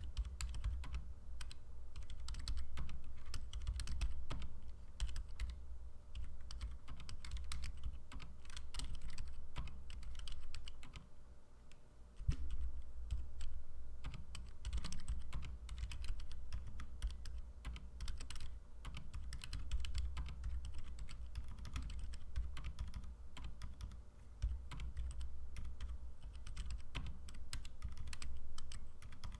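Mechanical keyboard fitted with Outemu Silent White switches being typed on in a sound test: a fast, uneven run of soft keystrokes, each a dull thud with a light click, with a short pause about eleven seconds in.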